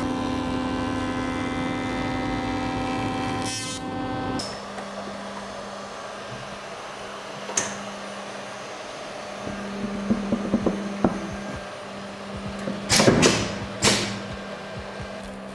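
A jointer running with a steady, multi-pitched whine as a plywood board's edge is passed over it, cut off abruptly about four seconds in. After that a lower steady machine hum continues, with wooden clunks and knocks as a board is handled and laid onto the edge bander's infeed rollers, the loudest pair near the end.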